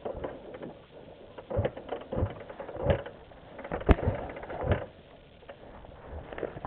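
A few irregular knocks and thumps, with one sharp click about four seconds in.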